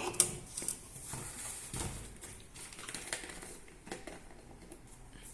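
Light clicks and knocks of a plastic fuel jug and funnel being handled, with a few sharper clicks just after the start.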